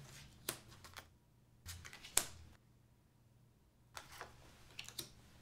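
Playing cards being dealt onto a wooden tabletop: several light taps and short slides as the cards are set down, the sharpest about two seconds in.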